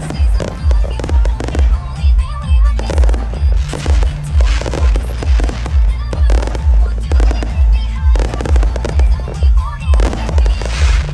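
Fireworks bursting and crackling, with loud music playing over them: a heavy bass beat pulsing about twice a second.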